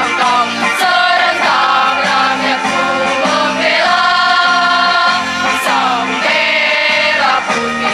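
Girls' school choir singing an Indonesian national song, with several long held notes.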